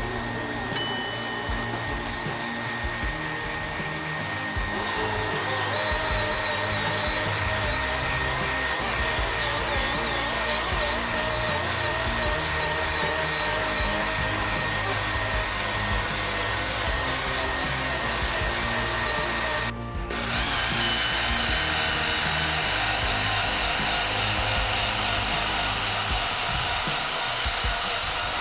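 Small handheld polisher with a light polishing disc running steadily with a steady whine, buffing scratches out of car paint. It stops for a moment about two-thirds of the way through and starts again with a sharp click.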